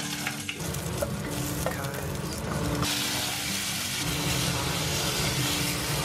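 Tomato pieces sizzling in hot oil in a saucepan while being stirred with a wooden spatula; the sizzle gets louder about three seconds in.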